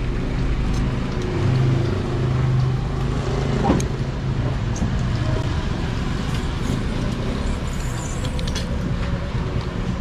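Steady low rumble of motor vehicles running nearby, with a brief rising tone about four seconds in and a few faint ticks.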